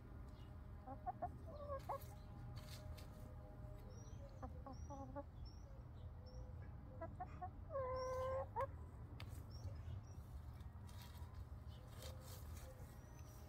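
Chickens clucking softly now and then while they peck and scratch for food, with one longer, louder call about eight seconds in.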